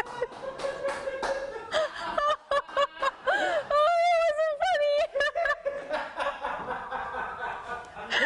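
A person shrieking and laughing in fright at the sight of spiders: short bursts of squealing, nervous laughter, with one long, high, wavering shriek about four seconds in.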